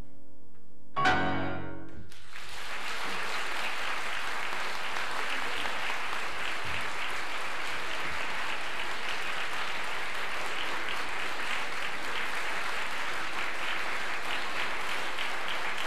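A loud final chord, most likely from the accompanying piano, rings about a second in and fades. The audience then breaks into steady applause that continues.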